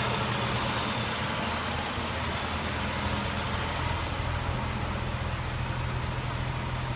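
1988 Nissan 300ZX's V6 engine running steadily at a raised fast idle of about 2,000 rpm, held there with the idle compensator for testing.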